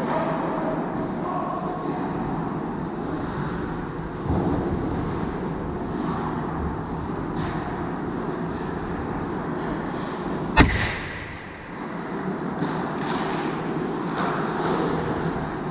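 Ice hockey play: a steady wash of rink noise, a dull thud about four seconds in, and one loud sharp crack about ten and a half seconds in, followed by a few lighter knocks.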